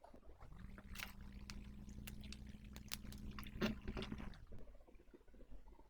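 Faint clicks and plastic handling as a soldering iron handle's connector is plugged into the soldering station, with a low steady hum for a few seconds.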